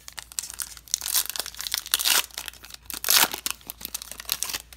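Foil wrapper of a Panini Prizm football retail card pack being torn open and crinkled by hand: a run of crackling, with the loudest rips about two seconds and three seconds in.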